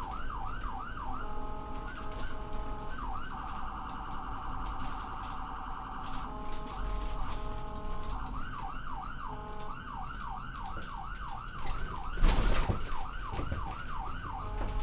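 Ambulance's electronic siren cycling through its modes: a fast rising-and-falling yelp, a two-tone hi-lo, and a very rapid warble, then back to the yelp. A low rumble runs underneath, and a short, loud burst of noise comes about twelve seconds in.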